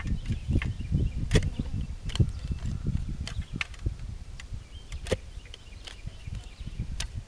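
Manual clamshell post-hole digger being driven into the ground and worked open and shut, giving irregular sharp knocks and clicks of the blades and handles in the soil, about one every second or so, over a low steady rumble.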